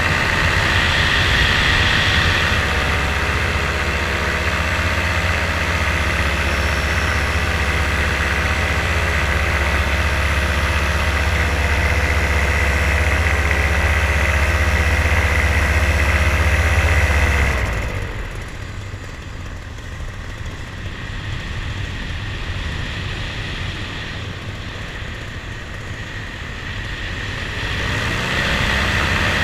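Steady hum of the filming aircraft's motors and propellers, pitched with a deep low end. About eighteen seconds in it is throttled back, and the pitch and loudness fall. Near the end it is throttled up and rises again.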